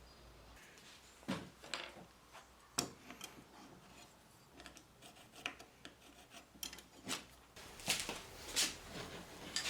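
Irregular short scraping and rubbing strokes mixed with light clicks and knocks, from hand work on a bevel gauge's parts.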